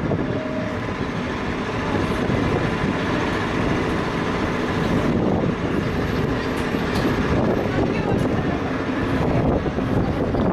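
Ascensor da Glória funicular car rolling on its rails as it slides in to the lower station, a steady rolling noise mixed with street hubbub.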